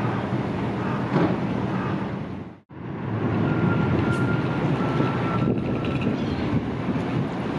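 Car ferry's engines running at the berth: a steady low rumble mixed with wind noise on the microphone. The sound cuts out for an instant about two and a half seconds in, and a faint thin tone comes and goes after it.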